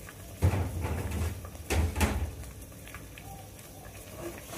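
Handling of a metal ladle at a pot of boiling bamboo-shoot curry broth. There are deep thuds about half a second in, then two sharp knocks of the ladle against the pot just before two seconds, and quiet handling and stirring after that.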